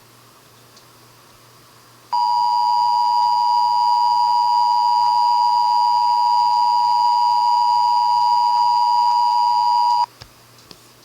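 Emergency Alert System two-tone attention signal: a loud, steady two-pitched tone that starts about two seconds in, holds for about eight seconds and cuts off sharply. It announces that an emergency alert message is about to be read.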